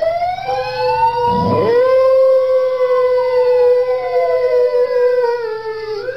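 A dog howling along with a siren: a long, slowly wavering howl held under a siren whose pitch climbs slowly and then falls away.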